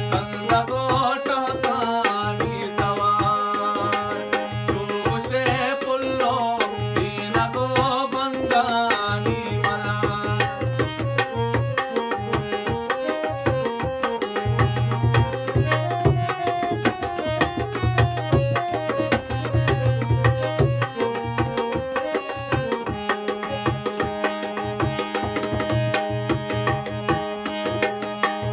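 Harmonium playing a Balochi song over a fast hand-drum rhythm. A man sings along for roughly the first ten seconds, then the harmonium carries the melody alone with the drum.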